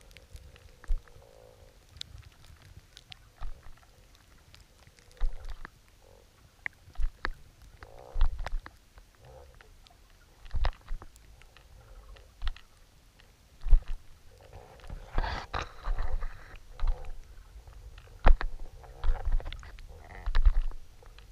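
Underwater sound of the camera rig moving along a mussel-covered bottom: irregular low knocks and thumps with scrapes and short rushes of water noise. They come more often in the second half, with the longest rush of noise about two-thirds of the way in.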